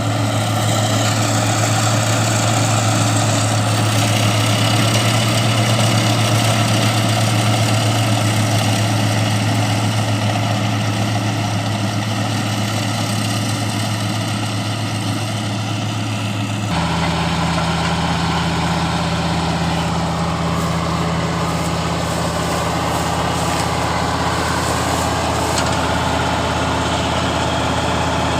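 Kubota combine harvester's diesel engine running steadily at idle. About two-thirds of the way through, the hum changes abruptly to a higher steady pitch.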